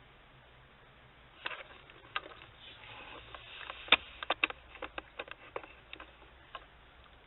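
Faint room tone, then from about a second and a half in a quick, irregular run of sharp clicks and light knocks, loudest about four seconds in, dying away near the end.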